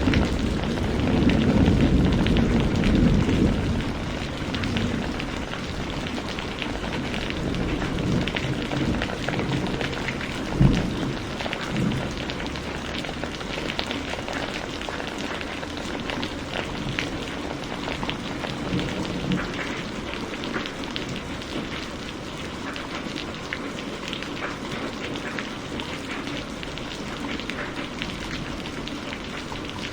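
Heavy rain falling steadily, a dense hiss with many small drop impacts. A low thunder rumble dies away over the first few seconds, and a single sharp low thud comes about a third of the way in.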